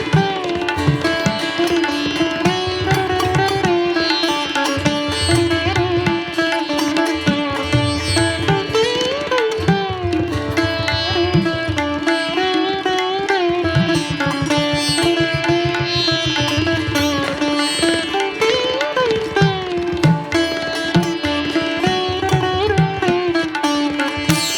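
Background instrumental music: a wavering melody line over a steady drum beat.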